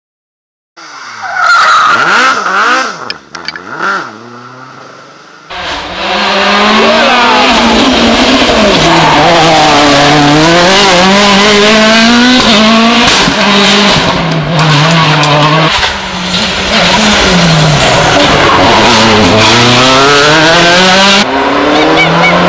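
Rally car engines driven hard, revving up and dropping back through gear changes, with tyre squeal and skidding. After a brief silence one car is heard, then about five and a half seconds in a louder, unbroken run of engine revving begins.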